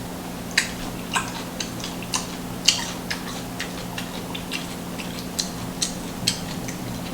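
Close-miked chewing: a string of short, wet mouth clicks and smacks, roughly two a second and irregularly spaced, over a steady low electrical hum.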